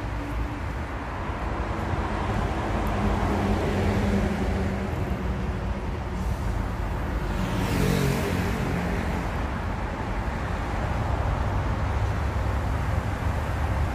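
Road traffic running steadily under a low rumble. About eight seconds in, a vehicle passes close by and its engine pitch drops as it goes past.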